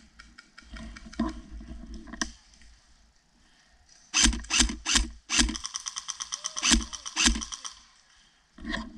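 Airsoft rifle firing: a few sharp single shots about four seconds in, then a rapid burst of fire lasting about two seconds. Before that, rustling in dry leaves.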